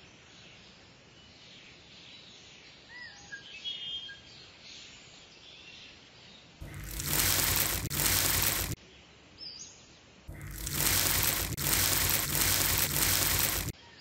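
Fine sand and cement pouring from a small cup into a toy cement mixer's drum: a loud hissing rush, twice, each lasting two to three seconds. Faint birdsong comes before it.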